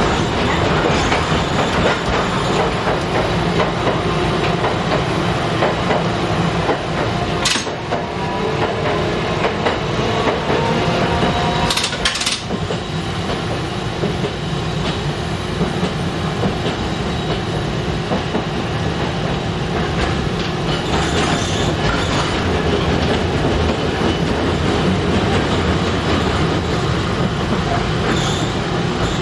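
Kagoshima City Tram 9500-series streetcar running on its nose-suspended (tsurikake) traction motors: a steady rumble with a gear-and-motor whine that rises in pitch about eight to twelve seconds in, as the car picks up speed. There are two sharp clicks, the second near the middle.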